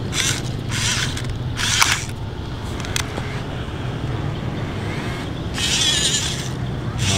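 Huina 1551 remote-control toy excavator's electric motors and gearboxes whirring in short high-pitched bursts, three in the first two seconds and one more near the end, over a steady low hum, as its tracks and arm work it over a rock.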